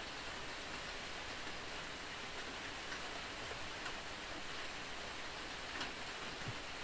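Steady rain falling on open water, an even hiss with a few faint drop ticks here and there.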